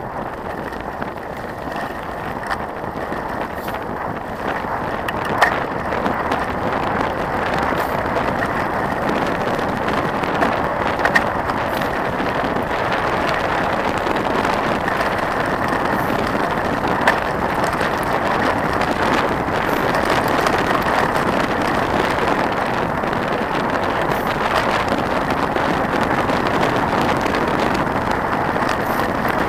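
Trek 4900 mountain bike rolling along a gravel road, heard from a camera on the bike: a steady rush of tyre noise that grows louder over the first several seconds and then holds, with a few sharp clicks.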